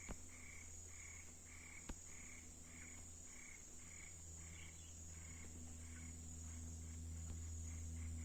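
Forest animal chorus: a steady high-pitched insect drone, with a short call repeated about twice a second that falters past the middle and comes back quicker near the end. Two faint clicks are heard near the start.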